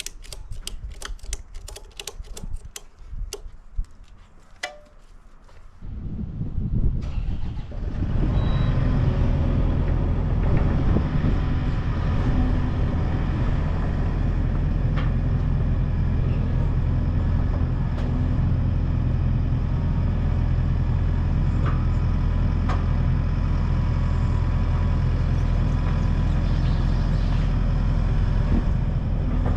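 A few seconds of sharp clicks, then an engine starts and settles into a steady run.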